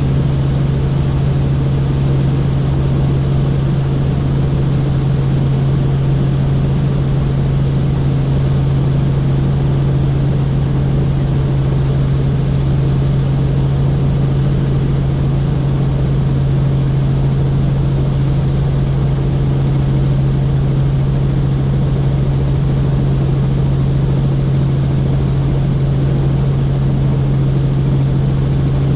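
Helicopter in flight, a steady unchanging drone with a strong low hum.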